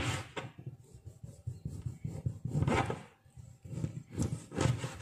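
Kitchen knife cutting through a lime in several rough, rasping strokes.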